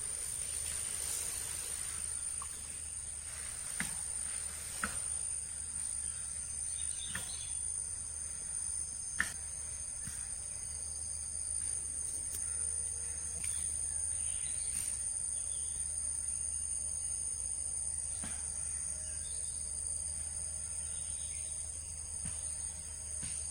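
Crickets chirring in a steady high-pitched drone, with a few faint clicks.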